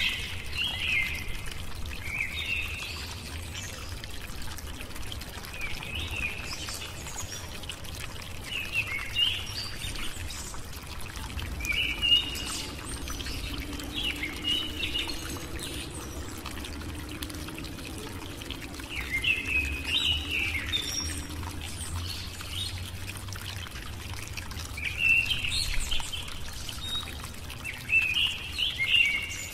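Birds chirping in short clusters every few seconds over a steady low rushing noise.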